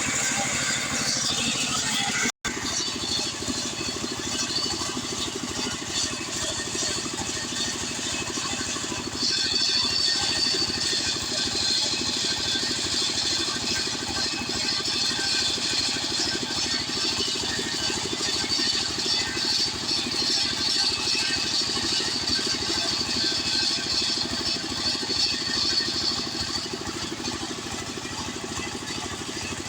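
Stihl 070 two-stroke chainsaw running steadily while sawing an acacia hardwood log. About nine seconds in it gets louder, with a higher whine that holds for most of the rest.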